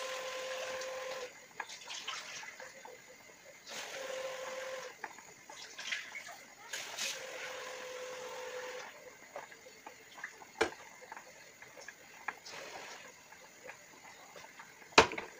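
Covered pan of food cooking on a gas hob, its steam hissing out in three bursts of a second or two, each with a faint steady whistle, and light ticks in between. A sharp metal clank comes near the end, as a second saucepan is brought to the stove.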